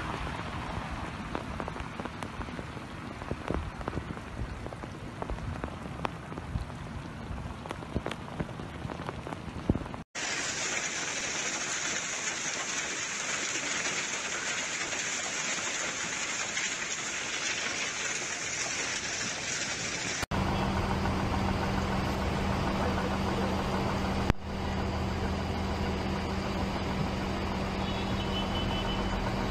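Hailstorm: first dense, irregular clicks of hailstones striking ground and vehicles, then about ten seconds in an even, steady hiss of falling hail. From about twenty seconds in, a vehicle engine runs with a steady low hum under the hiss of rain over a flooded street.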